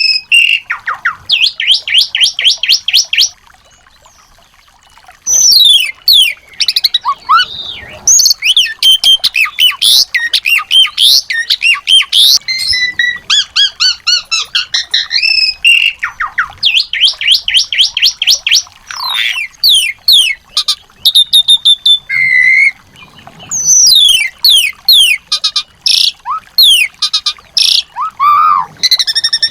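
Small songbirds singing: fast trills of short repeated notes alternating with quick whistled sweeps and chatter, with a brief pause about three seconds in. This is masteran song, recorded small-bird song used to tutor and provoke white-rumped shamas into singing.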